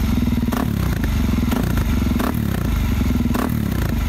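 Suzuki DR-Z400 supermoto's single-cylinder four-stroke engine running through an aftermarket slip-on muffler with its spark arrester and baffle removed. The open exhaust note dips and picks back up about once a second.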